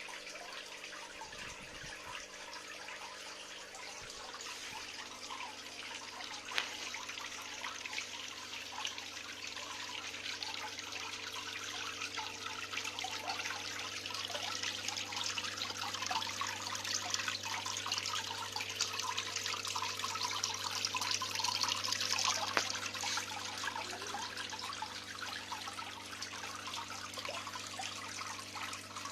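Water trickling and splashing continuously down a decorative waterfall fountain, over a steady low electric hum.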